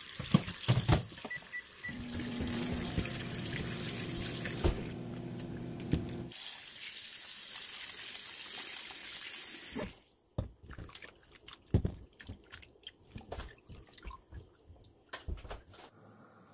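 Kitchen tap running into a glass bowl in a stainless steel sink, dipping briefly about five seconds in and shutting off about ten seconds in. Then scattered splashes and sloshes as hands rub and rinse mushroom pieces in the water.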